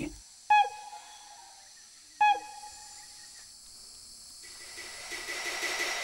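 Two short, downward-slurring calls from a rainforest bird, about two seconds apart, over a faint steady hiss of forest insects that swells louder in the last second or so.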